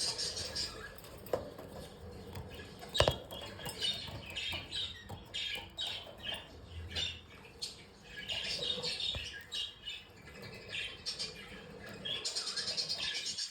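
Budgerigars chirping and warbling, with a sharp knock about three seconds in and a fast run of chattering chirps near the end.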